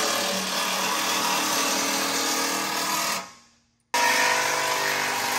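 Cordless power tool with a 15 mm socket running steadily as it backs out the skid plate bolts on a Ford Bronco. It fades out about three seconds in and starts again about a second later.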